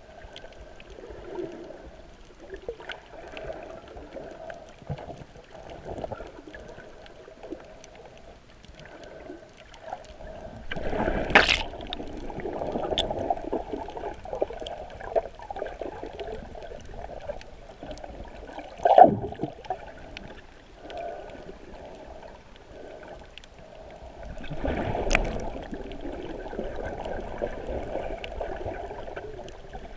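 Muffled underwater sound picked up through an action camera's waterproof housing: water swishing and gurgling around it as the swimmer moves. There are louder rushes of water about eleven seconds in, a sharp one near nineteen seconds, and a longer one in the last few seconds.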